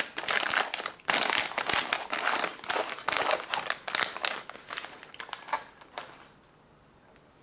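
Plastic flameless ration heater bag crinkling and rustling in irregular bursts as it is stuffed back into the ration's cardboard box, stopping about six seconds in.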